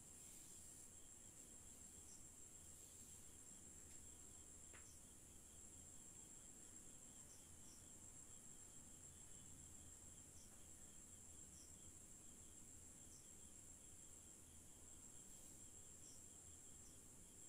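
Near silence: a faint, steady high-pitched hiss with a faint, regular ticking chirp underneath.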